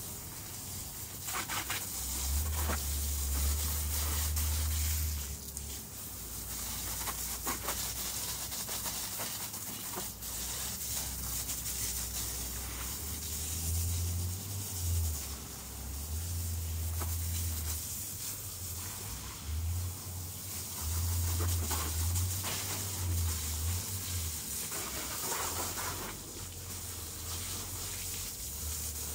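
Water hissing from a garden hose as it sprays the quad bike's body and wheels, with stretches of low rumble coming and going.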